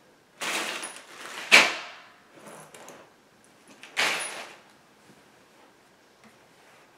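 Bed-frame hardware being handled: two short bursts of rustling and jingling of small metal parts, with a sharp clack between them about a second and a half in.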